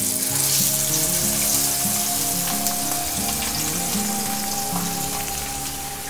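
A whole masala-coated fish laid into hot oil in a frying pan, the oil sizzling at once and then frying with a steady hiss that eases slightly over the following seconds.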